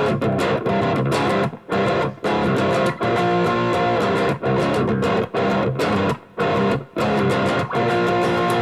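Electric guitar with crunchy overdrive playing chords in short bursts with brief stops between them, on the bridge single-coil pickup alone (a Wilkinson Alnico V), through a Boss SD-1 overdrive and a Boss GT-1 high-gain patch into a small amp.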